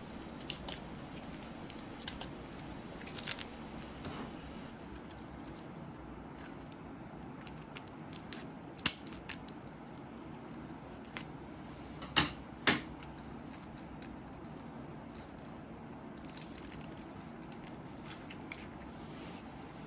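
Plastic retail packaging of a memory card being handled and opened by hand: scattered small clicks and crackles, with a sharp snap about nine seconds in and two more close together about twelve seconds in.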